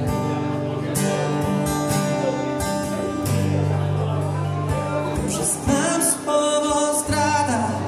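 Acoustic guitar strummed steadily while a man sings, as a live solo song.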